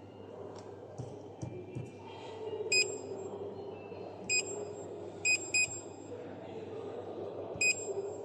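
Short electronic touch-feedback beeps from a 7-inch DWIN HMI touchscreen display's buzzer as its on-screen buttons are tapped. There are five identical high beeps at uneven intervals over a steady low room hum.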